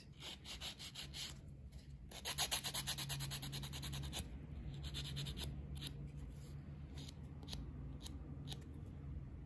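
Hand nail file rasping back and forth over an acrylic nail on a practice finger in quick strokes, loudest and busiest from about two to four seconds in. The acrylic has set rubbery rather than hard.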